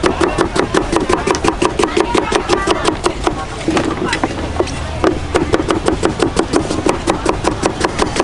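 Cleaver chopping young green mango into thin slices on a wooden cutting board: rapid, even knocks about five a second, stopping for a second or so near the middle before the chopping starts again.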